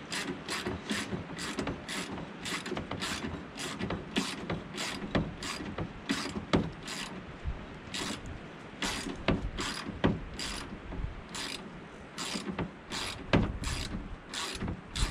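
Hand socket ratchet clicking in a long run of short, irregular strokes, two or three a second, as a tailgate hinge bolt is turned out.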